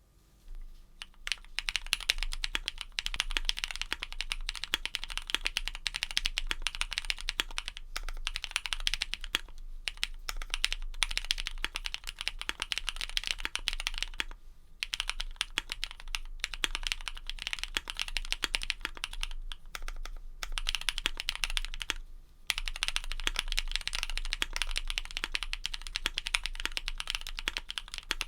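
Fast, continuous typing on a custom mechanical keyboard with lubed and filmed linear switches (Cherry MX Black housings with Kailh red stems) on an aluminium plate, with case foam and PBT keycaps. The keystrokes start about a second in and run dense and rapid, broken by a few short pauses.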